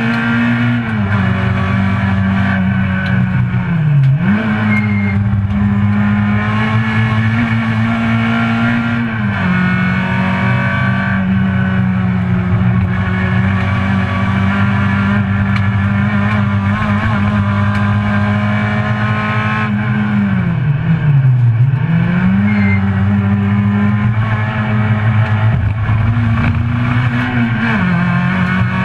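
Citroën C2 GT's four-cylinder engine, heard from inside the cabin, running hard at high revs on track. Its pitch holds fairly steady, with a quick dip and recovery about four seconds in and again just after twenty seconds.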